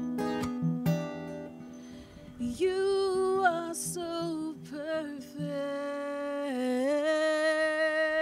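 Acoustic guitar strummed, then, from about two and a half seconds in, a woman singing over it, sliding between notes and ending on a long held note with vibrato.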